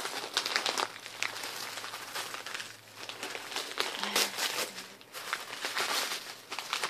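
Gift wrapping crinkling and rustling in irregular handfuls as a package is unwrapped by hand.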